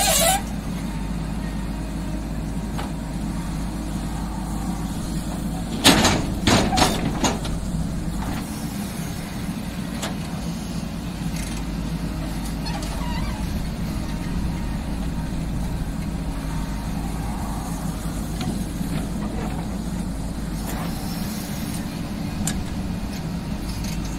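JCB 3DX backhoe loader's diesel engine running steadily as it digs, with a few loud knocks from the bucket and soil about six to seven seconds in.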